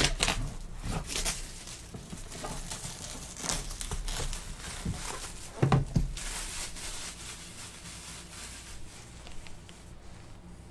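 Plastic shrink-wrap being torn and crinkled off a cardboard collectibles box, with a few knocks as the box is handled, the loudest about a second before the midpoint.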